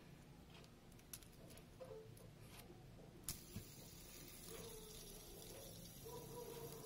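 Small clicks of fingers handling a plastic fidget spinner. About halfway through there is a sharp click as it is flicked. Then comes a faint, steady whir as the spinner turns fast on its ball bearing.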